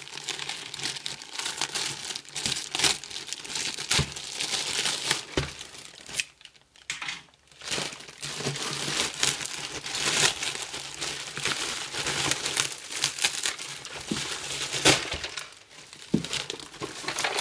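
Plastic mailer bag and bubble wrap crinkling and tearing as they are pulled open by hand, a dense run of small crackles with a brief lull about six seconds in.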